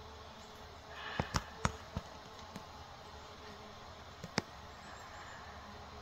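Faint steady outdoor background broken by short sharp clicks or snaps: a quick cluster of four between one and two seconds in, then two more a little after four seconds.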